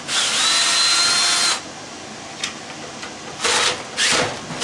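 Power drill driving a socket onto a rusty pump-housing bolt. It runs once for about a second and a half with a steady whine, then gives three or four short bursts near the end.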